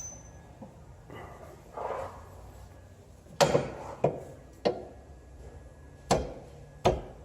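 Hammer tapping a bolt back into the rear brake assembly: about five sharp metal taps spaced irregularly, with softer handling noises between.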